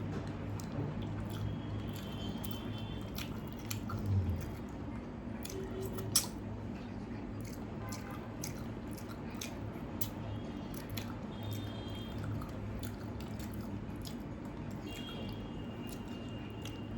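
Close-miked eating of panta bhat, watery fermented rice, with chicken curry: wet squishing and chewing, with scattered small clicks and one sharp click about six seconds in. A steady low hum runs underneath.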